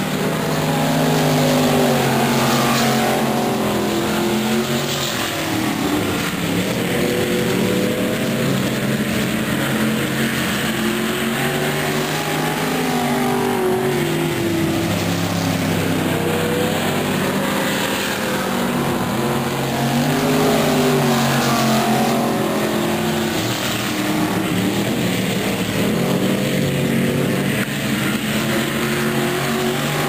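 Pure stock dirt-track race cars running in a pack, several engines overlapping and each repeatedly rising and falling in pitch as the drivers get on and off the throttle.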